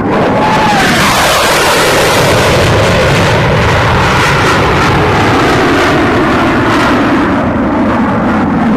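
Dassault Mirage III's single SNECMA Atar turbojet roaring loudly and steadily as the fighter makes a high-speed pass, with a short falling whistle about half a second in. The upper hiss thins out near the end.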